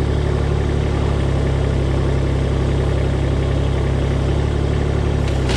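Engine of the heavy machine used for lifting, running steadily at idle with a low, even hum.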